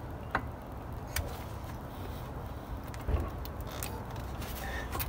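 Metal-on-metal clicks as a Ford Focus rear wheel hub is worked by hand onto a splined axle shaft, with one duller knock about three seconds in.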